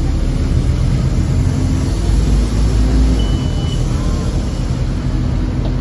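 A Scania OmniCity bus's diesel engine running with a steady low drone as the bus travels, heard from inside the passenger saloon. A short high beep sounds about three seconds in.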